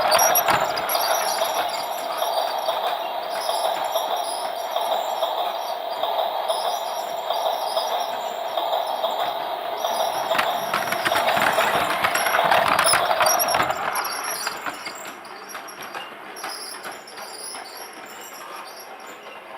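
Toy train running: a steady motor whine with a fast, crackling rattle above it, getting quieter about 14 seconds in.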